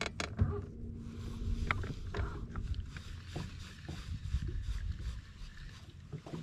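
Irregular knocks and thumps in a small fishing boat, over a low rumbling background, with a steady low hum for about two seconds near the start.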